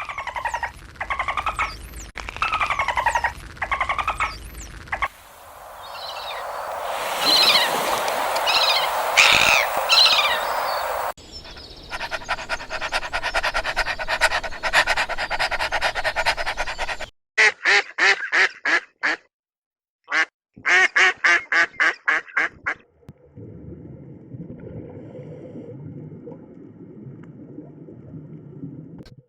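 A run of different animal calls cut together in short clips, changing abruptly several times; bird calls like duck quacking are among them.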